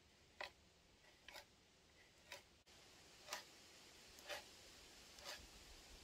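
A T-handle spiral auger boring into a log: faint, short cutting sounds of the bit in the wood, about one per second as the handle is turned.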